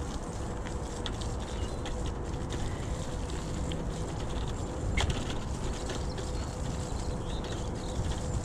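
Electric bike riding over a grassy, muddy towpath: a steady rumble of tyres on the ground mixed with wind on the microphone, and a faint steady hum from the motor. A sharp rattle of the bike about five seconds in.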